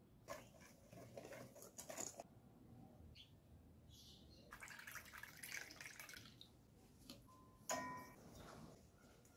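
Faint kitchen sounds: a wire whisk scraping and tapping in a stainless steel bowl of dry flour, then evaporated milk poured from a can into a plastic measuring cup. Just before the end, a sharp metallic clink with a brief ring as the whisk strikes the steel bowl.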